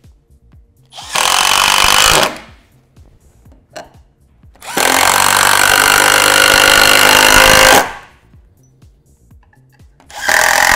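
Cordless power driver driving screws to fix a brace that holds up a drain pipe. It runs in three spurts: a short one about a second in, a longer one of about three seconds in the middle, and a short one near the end.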